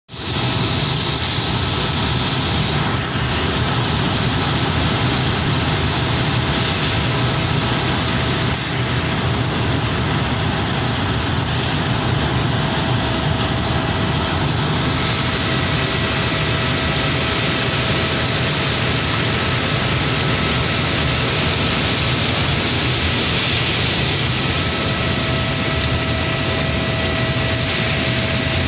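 Asphalt mixing plant running: a steady, loud industrial roar from the rotary drum dryer and its machinery, with a faint steady whine on top.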